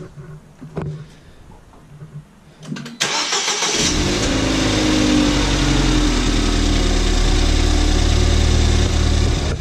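Ford Fiesta ST 180's 1.6-litre turbocharged four-cylinder engine cranking and catching about three seconds in, then running at a steady idle, after a few faint knocks. This is its first start after a service with fresh oil, new spark plugs and an engine flush.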